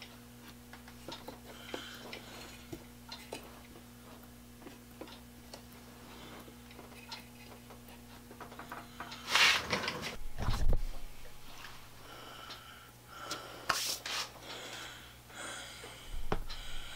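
Faint clicks and rubbing as hands work a metal hobby drill-press stand holding a Dremel, tightening its clamp knob, over a steady low hum that stops about nine seconds in. Then a louder rustle with a low thump, another loud scrape a few seconds later, and softer handling noises.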